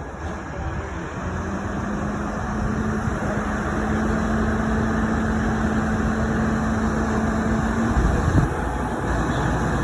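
Mobile crane's diesel engine running under load during a lift. A steady droning tone comes in about a second in, rises a little in pitch, and stops about eight seconds in, followed by a deeper rumble.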